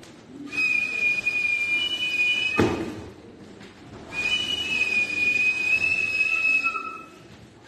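Small hand-held pipe or whistle blown in two long, steady, high-pitched notes. The first breaks off about two and a half seconds in with a brief thump, and the second starts about a second and a half later and runs almost to the end.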